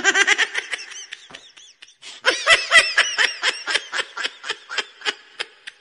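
A person laughing hard in rapid bursts of about five or six a second, in two long runs with a short break about one and a half seconds in.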